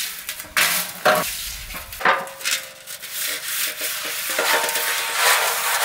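A large metal cooking pot being rubbed and scraped by hand, a rough, gritty scraping in irregular strokes.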